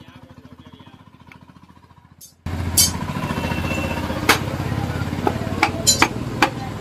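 A motorcycle engine idling, its steady fast beat jumping much louder about two and a half seconds in. Over it come several sharp metallic clinks as the timing chain and camshaft are fitted into the cylinder head of a Honda Shine engine.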